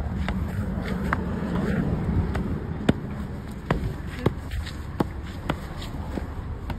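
A series of sharp knocks or taps, about one or two a second at uneven spacing, over a steady low rumble; the loudest come about three and four seconds in.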